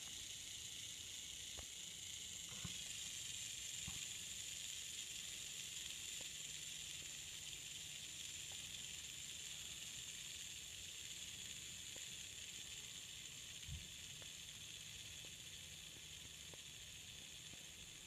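A fidget spinner coasting flat on a concrete floor, its bearing giving a steady, high whirring hiss that slowly fades as it spins down.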